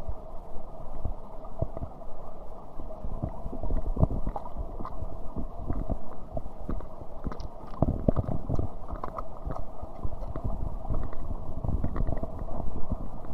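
Muffled rushing water of a stream or waterfall, with irregular knocks and clicks scattered through it.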